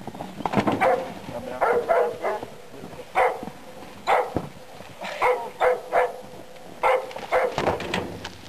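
A dog barking over and over, short barks in irregular runs of one to three, about a dozen in all.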